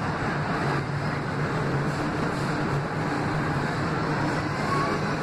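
R160 subway car running through a tunnel, heard from inside the car: a steady rumble of wheels on rails with a low hum underneath.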